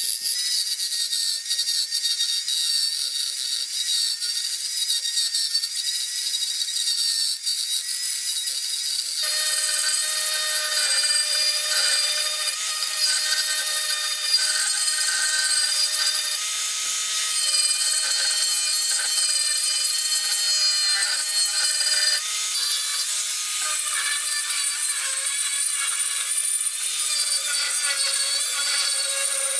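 A small power tool grinding or sanding into bamboo root wood, with a continuous high whine and rasping. Its tone shifts about a third of the way in and again about three quarters of the way through.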